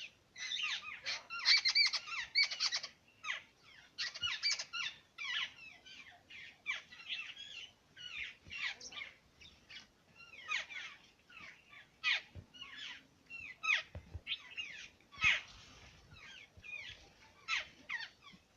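Several small birds chirping in quick, high-pitched calls, a dense chatter in the first few seconds, then sharper single chirps scattered through the rest.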